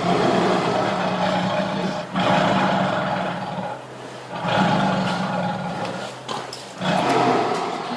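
Tiger roaring: four long, rough roars of about two seconds each, one after another.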